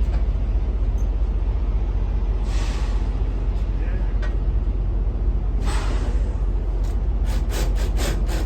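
Heavy truck's engine idling with a steady low rumble, broken by several short hisses, with a quick run of them near the end.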